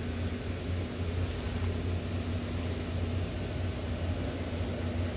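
Steady low hum and airy rush of the electric blower fans that keep a yard full of inflatable lawn decorations inflated, all running at once.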